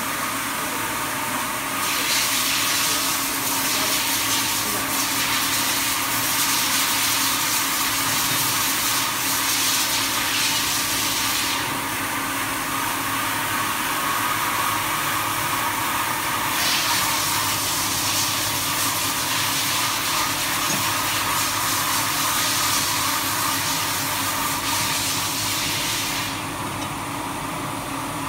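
Jonsen Sander SD300-WJS+3D wet-operation deburring machine running, with a wide sanding belt and three planetary disk brush heads: a steady hiss over a steady mechanical hum. The hiss grows louder for two long stretches, dropping back in between and near the end.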